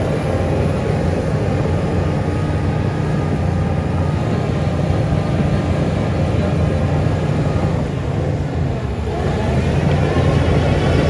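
Heavy diesel engine of earthmoving machinery running steadily under load. It eases off briefly about eight seconds in, then picks up louder.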